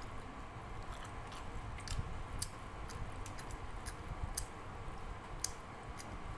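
Fried pomfret being chewed and crunched, with a dozen or so irregular sharp crisp clicks as fried fish bone and fin are bitten.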